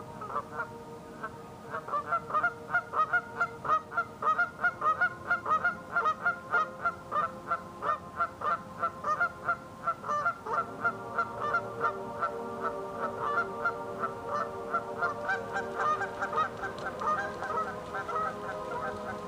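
Geese honking over and over in a quick run of calls, about three a second, loudest in the first half and thinning to a softer, more mixed calling later.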